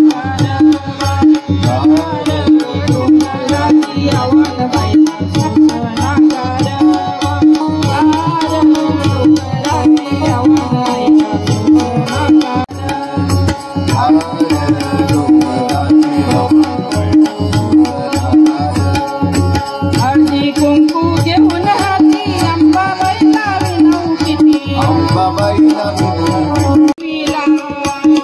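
Live devotional song (bhajan) with tabla, harmonium and singing, amplified through loudspeakers: fast tabla strokes over a steady held harmonium note, with a voice singing the melody.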